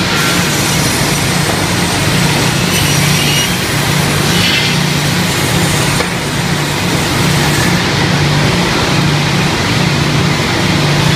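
Pallet board ripping saw machine running loudly, a steady motor hum that wavers slightly under machine and saw noise, with a brief brighter hiss about three to five seconds in.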